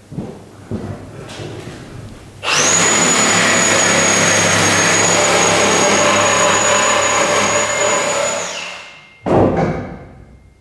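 A few light knocks, then a high-speed power tool runs with a steady high whine for about six seconds. It spins down with a falling pitch, and a loud clank follows about nine seconds in.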